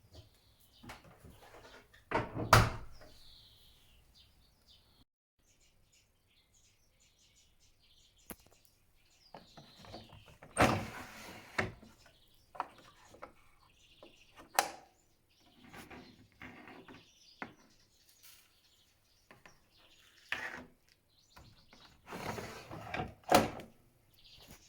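Knocks, clicks and sliding scrapes of a front-loading washing machine being handled, typical of its door and detergent drawer being opened and shut, in separate strokes with the loudest knocks about two seconds in and near the end. Short falling chirps are heard among them.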